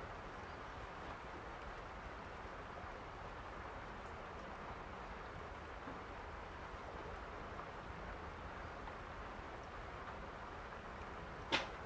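Steady rain falling, an even hiss, with one sharp click about a second before the end.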